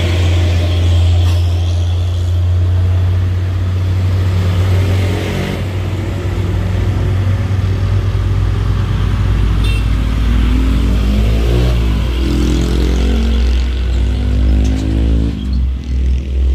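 Heavy truck diesel engine running with a steady low hum. About ten seconds in, the engine pitch rises and falls for a few seconds.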